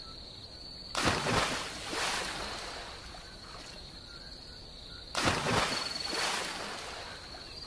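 Two water splashes about four seconds apart, each fading away over a second or two, as of someone plunging down into a river. A steady high chirring of crickets runs underneath.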